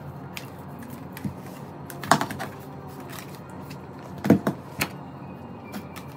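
Handling noises as a compact hair dryer is slid into a mesh laundry net: scattered light clicks and knocks of hard plastic, the two loudest about two seconds and four seconds in.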